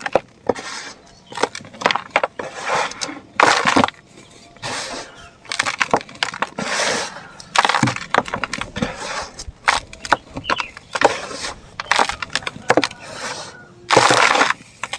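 Dried sand, dirt and cement clumps breaking and crumbling apart in an irregular run of sharp cracks and gritty bursts, with a longer, louder crumble near the end.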